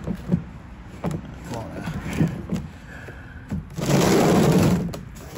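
A plastic oil drain pan being handled: a series of light knocks, then a loud scraping rush lasting about a second near the end.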